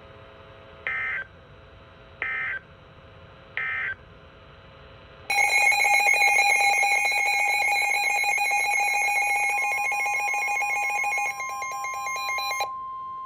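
Emergency Alert System SAME header: three short buzzy data bursts about 1.3 seconds apart. Then comes the steady EAS attention tone, which lasts about seven seconds and cuts off sharply, with a fainter single steady tone joining partway through and carrying on after it.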